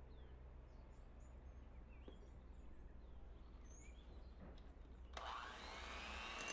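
An electric mixer switching on about five seconds in, its motor whine rising quickly and settling into a steady high running whir; before that, only faint scattered bird chirps.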